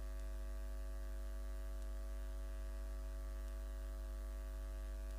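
Steady low electrical mains hum with a buzz of higher overtones, unchanging throughout.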